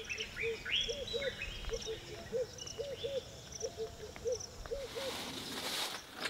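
Tropical forest ambience: a bird gives low hooting calls about every half second, often in pairs, over higher falling chirps from other birds and a thin insect buzz. A rushing noise swells near the end.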